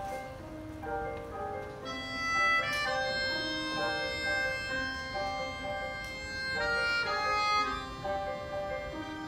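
Live instrumental music: acoustic guitar and keyboard accompanying a harmonica that plays a melody of held notes, louder from about two seconds in until near the end.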